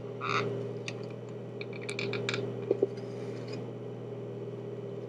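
Small clicks and rustles of hands bending and prying at something that won't open, a few scattered ticks in the first three and a half seconds, over a steady low hum.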